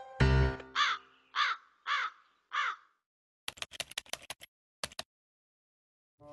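A crow caws four times in quick succession, each call a harsh arched 'kaa', followed about a second later by a rapid run of small light clicks.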